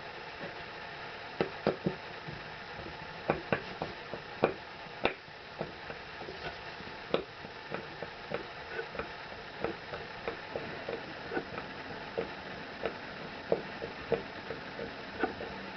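Channellock #1 Phillips screwdriver turning 2-inch wood screws out of a 2x4: an irregular run of short clicks and ticks, about one or two a second, over a steady hiss.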